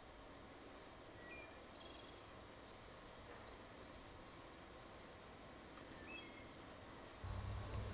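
Faint outdoor ambience with a scattering of short, high bird chirps. A low, steady hum comes in near the end.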